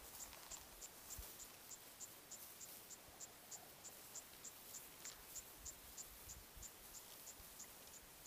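Insect chirping in the grass, faint: short high chirps repeated evenly, about four a second.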